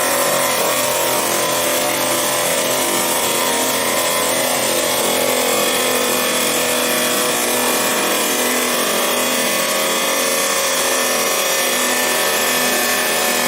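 Chop saw cutting steel reinforcing bar: a steady grinding whine with several held tones, running without a break.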